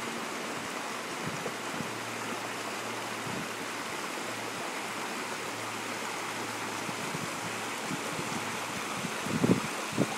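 Small creek babbling over rocks: a steady rush of running water. Near the end a few short low thumps stand out louder than the water.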